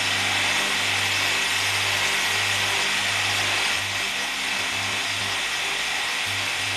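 Electric motor spinning a sandpaper drum on its shaft, a steady hum under a loud even hiss as a bamboo utensil is sanded against it; slightly quieter about four seconds in.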